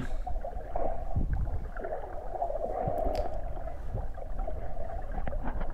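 Water noise picked up by a GoPro in its waterproof housing while snorkeling: a steady, muffled rushing with scattered small clicks and gurgles.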